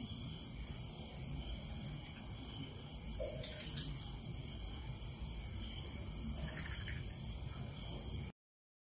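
Crickets trilling steadily in a continuous high-pitched chorus, cutting off abruptly near the end.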